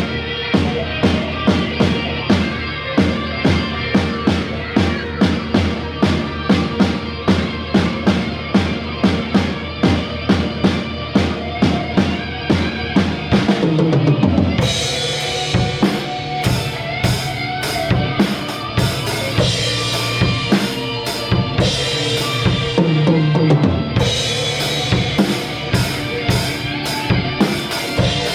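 Drum kit playing a rock beat with kick and snare over a sustained bass line and other band instruments; about halfway through the part changes and crash cymbals come in, filling out the sound.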